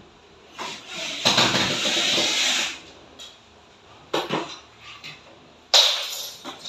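Hand tools and hard objects being handled and set down: a scraping rustle lasting about two seconds, then a few clicks and a sharp clattering knock near the end.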